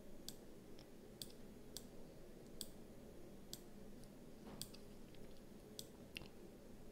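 Near silence with a low room hum and about ten faint, irregular clicks.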